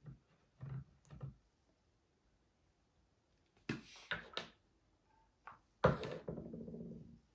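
Plastic skincare bottles handled and set down on a countertop: a few soft knocks, a short clatter of clicks about four seconds in, and a louder knock near the end that trails off over about a second.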